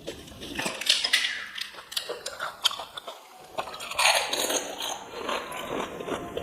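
Close-up crunching and chewing of crisp fried puri: irregular cracks and crackles as the shells break between the teeth.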